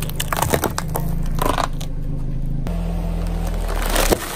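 Car tyre rolling over and crushing a bunch of plastic baby pacifiers: a string of cracks and snaps over the car's low engine hum. After about two and a half seconds the tyre is on a sealed bag of potato chips, with one loud sharp crack near the end.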